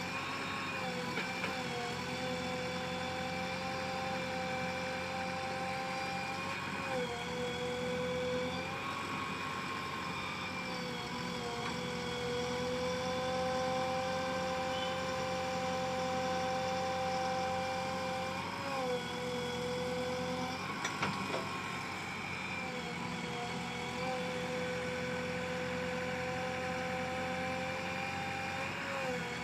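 JCB 3DX backhoe loader's diesel engine running steadily at working revs, its pitch sagging briefly three times.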